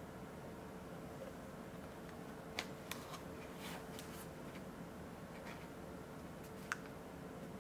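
Hinged plastic caliper case being opened: a sharp snap of the latch about two and a half seconds in, then a run of lighter clicks and rustles as the lid swings up, and another sharp click near the end.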